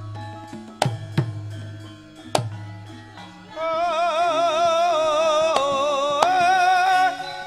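Javanese gamelan music: drum strokes and struck pitched notes, then about halfway through a high female voice enters, singing long wavering held notes over the ensemble.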